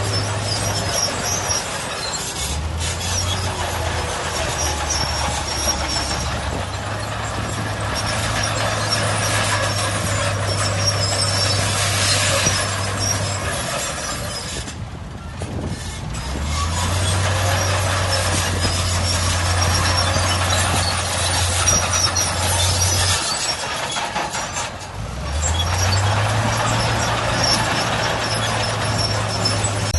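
Heavy diesel earthmoving machinery running under work. The low engine hum steps between pitches and drops away briefly twice, over a constant clattering noise.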